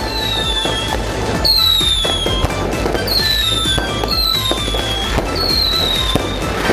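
Fireworks whistling, about five times, each whistle sliding down in pitch over roughly a second, over a continuous crackle of firecracker pops. Music plays underneath.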